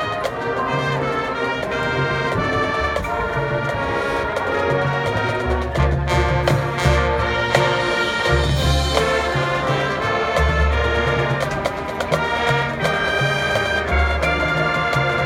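A high school marching band playing, brass section to the fore with trumpets and trombones over low bass notes and drum hits.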